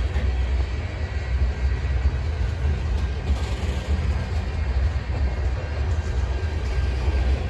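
Diesel-hauled train running by on the rails, a steady low rumble.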